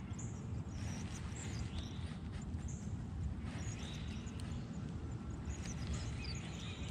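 Birds chirping over a low, steady rumble in the open air, with a few faint clicks.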